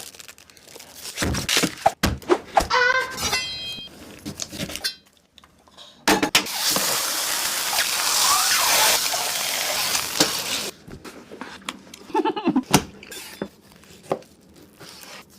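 Kitchen clatter of dishes and utensils, scattered knocks and clicks, with a loud steady hiss for about four seconds in the middle that cuts off suddenly.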